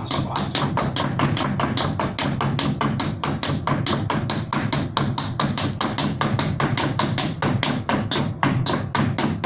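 Hard shoes tapping rapidly and steadily on a floor in tap-dance style footwork, about five taps a second.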